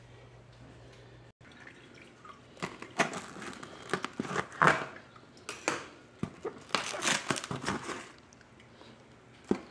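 Plastic cling wrap on a foam tray of snow crab legs being cut with a knife and pulled off, crinkling and crackling in irregular bursts from about two and a half to eight seconds in.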